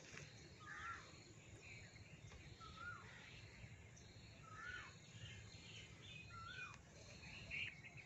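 Faint outdoor bird calls: a short looping whistled note repeated about every two seconds, with scattered higher chirps between them.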